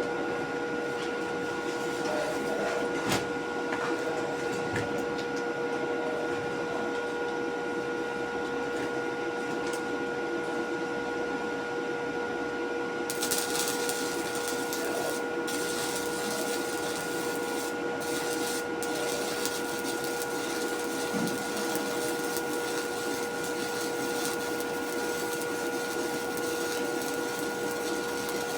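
Steady hum of a running machine, holding several constant tones over a low noise, with a higher hiss joining about halfway through.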